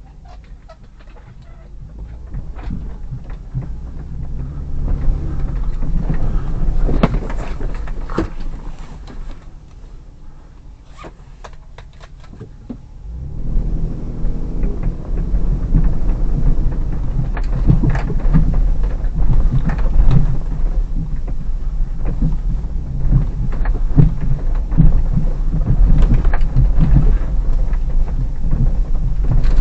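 Hyundai Terracan's 3.5 V6 engine and tyres rumbling inside the cabin as the SUV drives slowly over a rough snow-covered forest track, with frequent knocks and clunks as it goes over bumps. The rumble builds over the first several seconds, eases off for a few seconds, then rises again from about halfway on.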